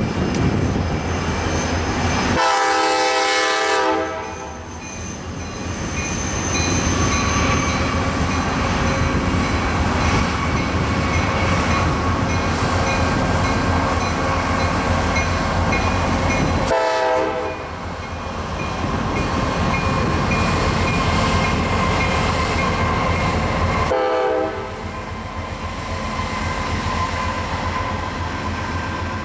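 A freight train rumbling past with its rail noise, while the diesel locomotive's air horn sounds three times: one long blast about two seconds in, then two short blasts later on.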